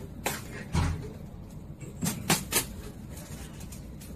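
A few short, light knocks and clicks, with a duller thump just under a second in, over a steady low background rumble.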